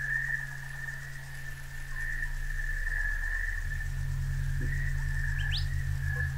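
Ambient sound-art soundscape: low electronic drones, one of them pulsing, under a steady high whistling tone. A single short rising chirp comes about five and a half seconds in.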